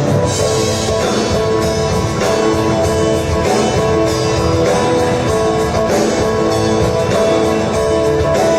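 A live band plays through the stage PA during a sound check: a guitar part over drums, with sustained pitched notes.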